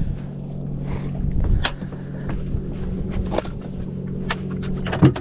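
A steady low mechanical hum aboard a small fishing boat, with scattered sharp clicks and knocks on top, the loudest just before the end.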